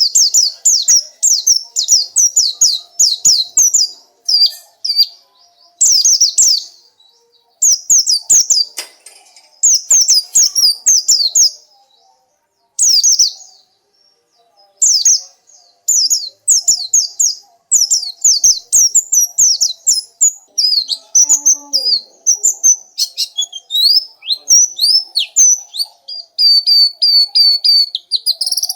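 Oriental white-eye (pleci) song: rapid, high-pitched twittering phrases in bursts with short pauses between them, turning into a denser, more varied run near the end.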